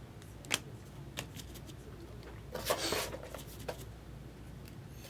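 Trading cards being handled and flipped through by hand: a few light clicks and snaps, with a short rustle of cards about halfway through.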